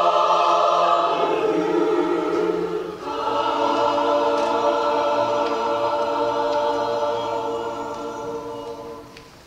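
A choir holding the final chords of a slow song. One chord gives way to another about three seconds in, and the last chord is held and fades away near the end.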